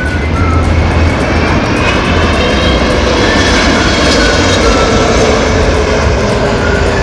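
Twin turbofan engines of an Airbus A330 airliner passing close on final approach to land: a steady jet rumble with whining tones that glide, one falling slowly in pitch over the last few seconds as it goes by.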